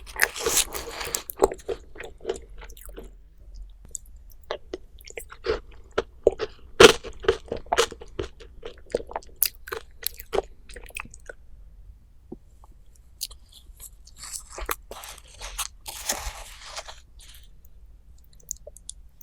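Close-miked eating: a person biting and chewing crunchy food, with crisp crunches coming thick for the first ten seconds or so. After a short quieter spell, a denser run of crunching comes a few seconds before the end.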